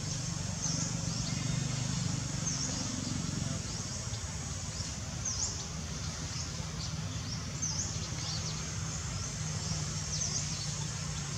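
Forest ambience: short high chirps repeating every second or so over a steady low rumble.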